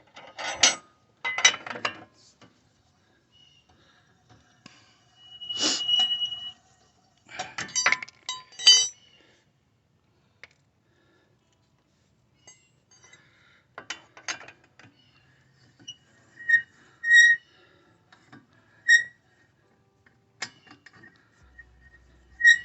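Metallic clicking and clinking as lug nuts are taken off the front wheel studs of a car and set down. Several bursts of clatter come in the first half, then a few short, bright ringing clinks in the second half.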